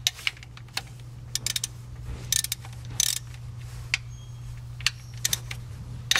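Hand ratchet clicking in short, irregular bursts as a 13 mm pinch bolt on a serpentine belt tensioner is worked loose. A steady low hum sits underneath.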